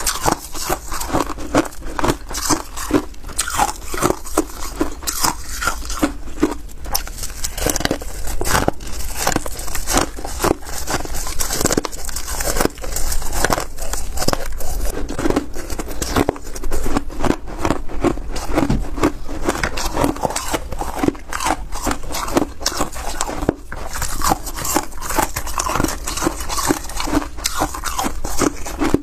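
Crushed ice being bitten and crunched in the mouth, close to the microphone: a dense, irregular run of crisp crunches. At times the crackle of ice being crumbled in gloved hands and scooped with a spoon.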